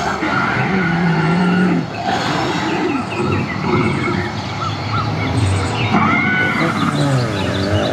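Recorded dinosaur growls and roars playing from an animatronic dinosaur's loudspeakers, a run of overlapping calls that rise and fall in pitch.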